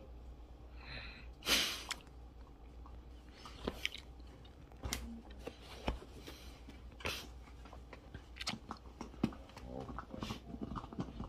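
Dog gnawing a bone chew: irregular crunches and wet chewing, the loudest crunch about a second and a half in.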